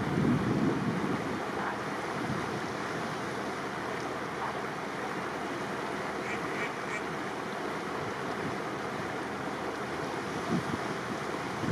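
Steady rush of wind and water from a boat under way on a river, with wind buffeting the microphone briefly at the start and again near the end. A faint bird call of three short notes comes about halfway through.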